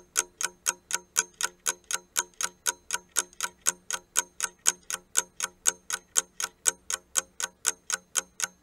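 Ticking-clock sound effect for a countdown timer: rapid, even ticks at about five a second.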